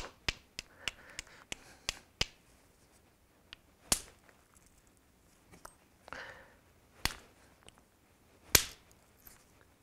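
Hammerstone striking a Swan River chert core: a quick run of light taps over the first two seconds, chipping away the sharp edges of the striking platform. Then come three hard stone-on-stone cracks, about four, seven and eight and a half seconds in, as flakes are struck off.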